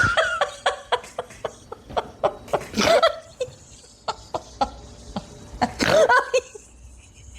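Laughter: quick breathy pulses of stifled laughing, then two louder bursts of laughing about three and six seconds in.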